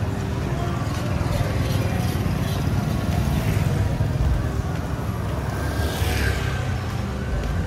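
Busy nightlife street ambience: a steady low rumble with faint music and voices mixed in, and a brief falling whoosh about six seconds in.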